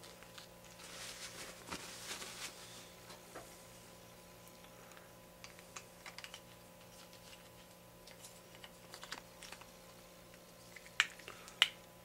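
Hands handling a plastic 1/5-scale RC car shock absorber and an orange plastic shock tool. There is light rustling about a second in, then scattered small clicks and taps, and two sharper clicks near the end.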